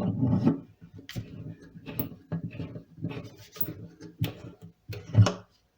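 Irregular scraping and clicking of a tapered hand reamer and bridge pin worked in a bridge-pin hole in an acoustic guitar's wooden bridge, enlarging the hole and checking the fit, with a louder knock near the end.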